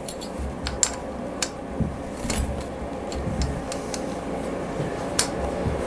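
Scattered light metallic clicks and taps of a small hand tool on the intake manifold bolts of a 1997 Harley-Davidson Evolution V-twin, as the bolts are backed off by hand, with a sharper click about a second in and another near the end.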